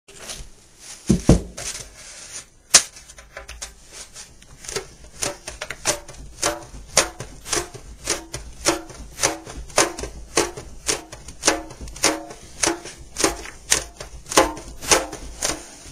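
A banjo head being pressed down over the pot by hand, a soft thump with a short ring of the head about twice a second. It starts with a few louder, irregular knocks and then settles into a steady rhythm.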